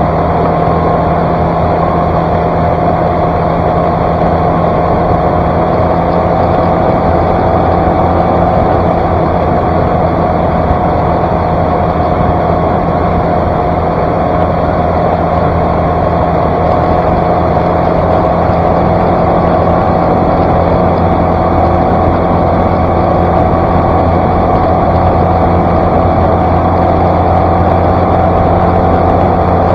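Outboard motor of an Ankona Shadow Cast 16 skiff running hard at high speed, a steady drone with a high whine that creeps slightly higher in pitch partway through.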